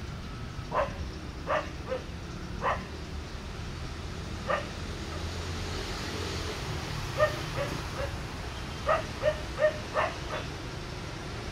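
A dog barking: short single barks spaced a second or so apart, then a quick run of barks near the end. A steady low rumble of a train running away underlies them.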